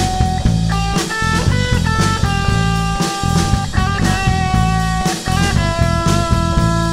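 Background rock music: guitar holding and changing sustained notes over a drum kit beat.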